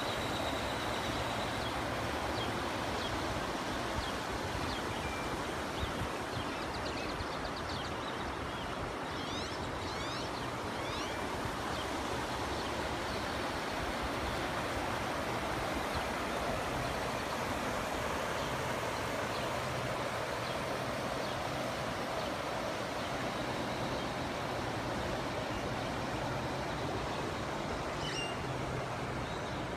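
Floodwater rushing steadily across and beside a flooded road, a continuous noise of fast-running water, with a few faint high chirps around ten seconds in.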